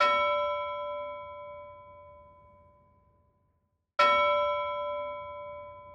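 A bell struck twice, about four seconds apart, each ringing tone dying away slowly over about three seconds.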